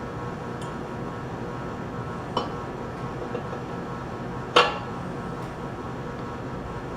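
A few light metallic clinks of pump parts being handled as the collar is fitted onto the motor shaft during reassembly, the loudest about halfway through, over a steady low hum.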